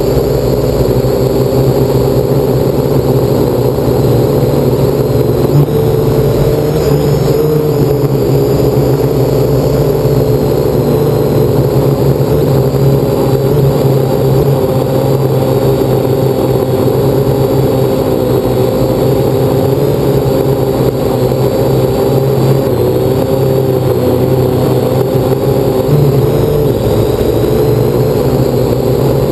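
Parrot AR Drone 2.0 quadcopter's four electric motors and propellers running steadily in flight, a loud hum heard from the on-board camera. The pitch steps up briefly a couple of times as the throttle changes.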